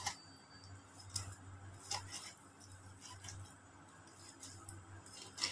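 Knife slicing raw fish thinly on a wooden cutting board, with a few sharp taps of the blade against the board, the loudest near the start, about a second in, at about two seconds and near the end.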